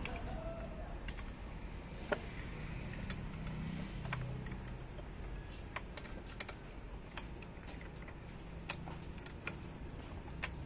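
Irregular light clicks and taps of metal tools and parts being handled during engine-part cleaning, a sharp tick every second or so.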